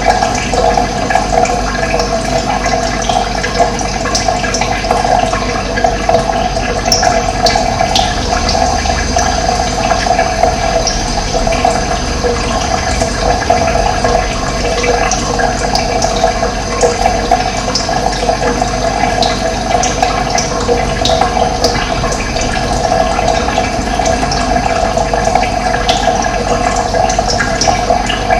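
Running water flowing steadily with a strong, even rush. A few faint high chirps sound over it now and then.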